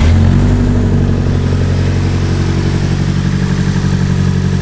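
Nissan SR20 four-cylinder engine catching and settling into a steady idle, run with a coolant funnel on the radiator so the cooling system can be bled.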